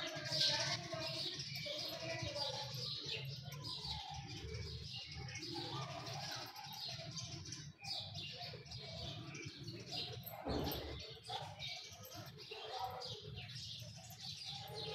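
Birds chirping repeatedly in the background over a low steady hum, with a brief low thud about two-thirds of the way through.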